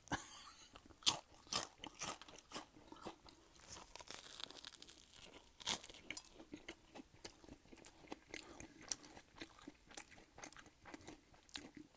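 Close-miked mouth sounds of a person eating: chewing with many sharp, crisp crunches, the loudest about a second in and just before the midpoint.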